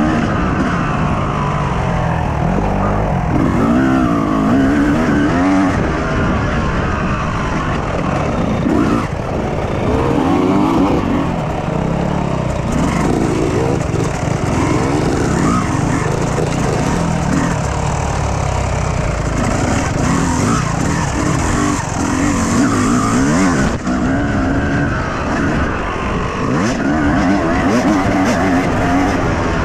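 Yamaha YZ250 two-stroke motocross engine being ridden hard. Its pitch climbs and drops back over and over as the throttle opens and closes.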